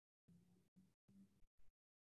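Near silence: faint room tone on a conference-call line, cutting in and out to dead silence several times.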